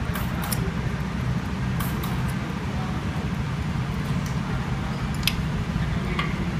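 Steady low mechanical hum with a few light clicks as a muffler pipe and MIG welding gun are handled; no welding is heard.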